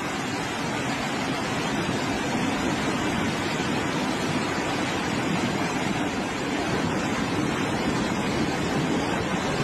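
Steady rushing water noise with no distinct events, as vehicles wade through a flooded street.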